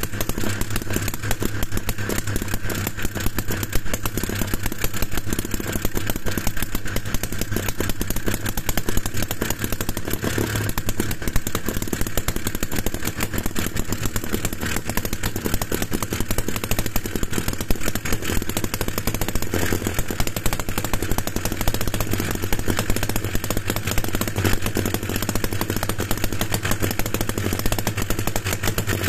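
Homemade two-stroke engine of about 12 cm³ running steadily, a fast, even clatter of firing strokes.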